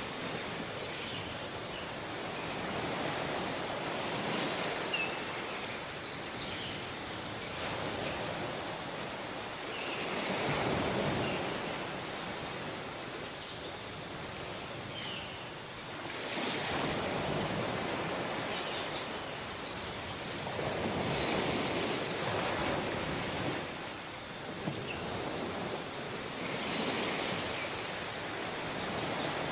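Surf washing onto a tropical beach, the waves swelling and falling back every five or six seconds, with a few short, faint high chirps over the top.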